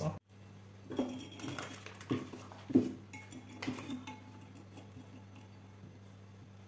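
A table knife clinking and scraping as it takes butter from a foil wrapper and spreads it on a slice of bread: a few short knocks and scrapes in the first four seconds, then softer spreading. A low steady hum runs underneath.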